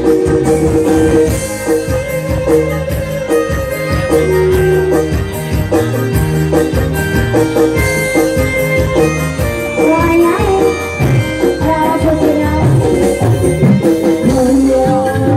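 Jaranan (kuda lumping) accompaniment music: drums beating a quick, steady rhythm under sustained melodic tones.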